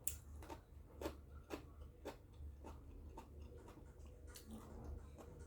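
Quiet eating sounds: crunchy mango being chewed, with soft scattered mouth clicks about every half second, over a steady low hum.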